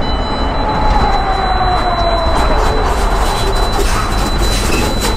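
Semi-truck braking hard under automatic collision-mitigation braking from about 50 mph, heard from inside the cab: heavy road and brake noise with a whine that falls in pitch as the truck slows. A steady high warning tone sounds over it.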